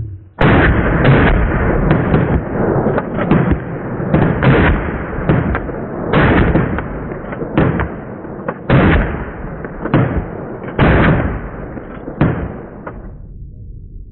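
Rapid, irregular series of loud bangs and blasts like gunfire and explosions, over a continuous rumble; it stops about a second before the end.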